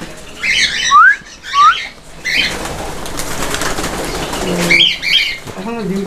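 Cockatiels in a colony aviary: two short rising whistles among other calls, then a flurry of wingbeats as birds fly up for a couple of seconds, and more calls near the end.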